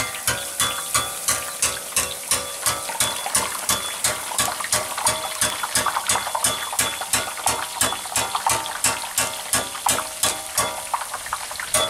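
A steel perforated ladle is tapped at a steady rhythm, about three taps a second, shaking drops of gram-flour batter into hot oil. The oil sizzles as the tiny boondi for motichoor laddu fry.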